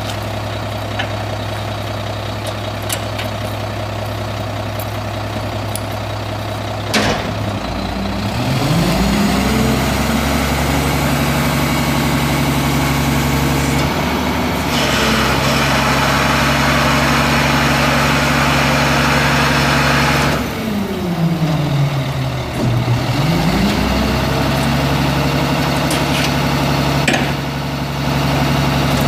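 Refuse truck's Caterpillar C10 turbo diesel idling steadily, then a sharp click about seven seconds in, after which the engine revs up and holds at raised speed. A rushing noise joins from about fifteen to twenty seconds; the revs then drop briefly and climb back up to the raised speed.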